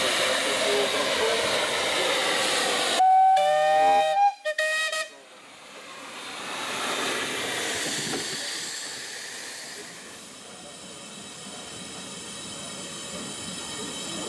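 Miniature steam locomotives letting off a loud steady hiss of steam. About three seconds in, a steam whistle blows for just over a second, then gives a short second toot. Softer hissing swells and fades afterwards as steam blows from a locomotive's cylinders.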